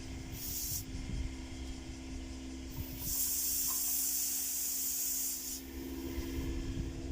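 Pressurised refrigerant gas hissing out during an air-conditioning recharge: a short puff near the start, then about three seconds of steady hiss. A steady low hum runs underneath.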